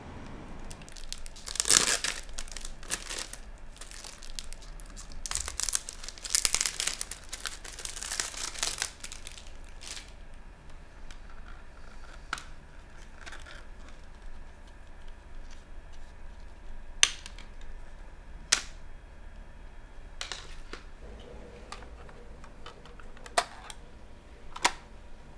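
Cellophane shrink-wrap being torn and crinkled off a CD case in quick bursts. Then comes a scattering of single sharp plastic clicks as the disc is handled and loaded into a Sony Discman ESP portable CD player.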